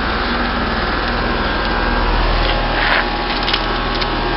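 Bryant Evolution 16 SEER two-stage heat pump's outdoor unit running: a steady hum from the compressor and condenser fan, with a brief scuff about two and a half seconds in.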